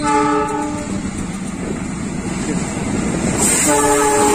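KAI diesel locomotive running light (no coaches) passes close by, its engine and wheels rumbling on the rails and growing louder as it nears. It sounds its multi-tone horn twice: a blast of just under a second at the start and a shorter one near the end as it draws alongside.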